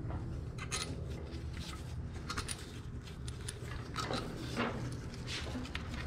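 Irregular light metal clicks and clinks of a socket wrench working the camshaft cap bolts on a Yamaha YZ450F cylinder head as they are loosened a little at a time, over a steady low hum.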